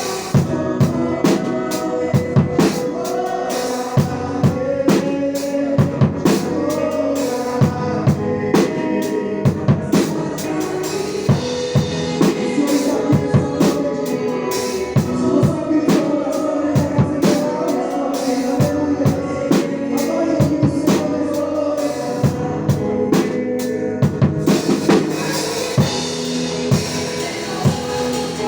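A band plays an instrumental passage of a worship song. A drum kit keeps a steady beat on bass drum and snare with rimshots, under sustained pitched instruments.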